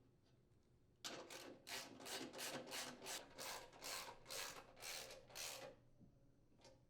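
Ratchet socket wrench rasping as it is swung back and forth, tightening the frame cover's mounting bolts: a dozen or so quick raspy strokes, two to three a second, beginning about a second in and stopping near six seconds.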